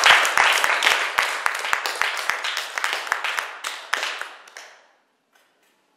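Small audience applauding, the claps thinning out and dying away about five seconds in.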